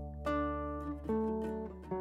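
Background music: plucked string notes, guitar-like, over a held low bass note.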